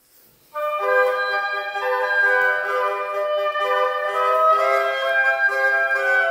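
Four oboes playing a classical passage together in parts, one player multitracked, with sustained, moving notes in harmony. The music comes in about half a second in.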